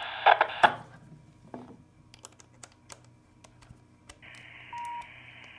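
Small metallic clicks and taps of an antenna's threaded coax connector being unscrewed from one handheld ham radio and fitted to another, with the radio's speaker audio cutting off about a second in. About four seconds in a radio starts hissing with received static, and a short beep sounds just before five seconds.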